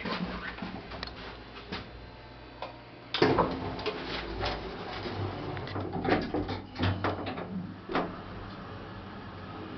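Clicks, knocks and clattering of a small elevator's wood-grain folding door being opened and then drawn shut, the loudest clatter about three seconds in and another knock near the end, over a faint low steady hum.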